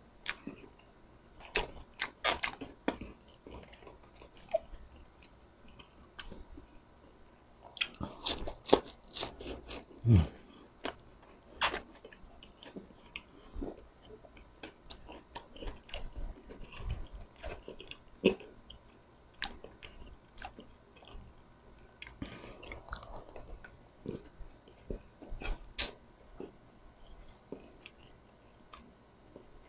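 Close-miked chewing and crunching of crispy chicharon bulaklak (deep-fried pork intestine) and pork sisig, with irregular sharp crunches and wet mouth sounds.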